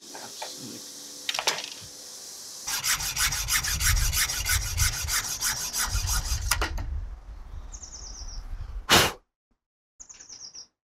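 Hand hacksaw cutting through a clear cast polyester resin block: a fast even run of rasping saw strokes for about four seconds, then one loud knock near the end.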